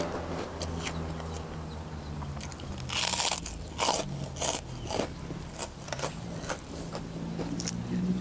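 Crunchy fried cracker (kerupuk) being bitten and chewed: a string of sharp, crackling crunches, thickest from about three seconds in, over a faint steady low hum.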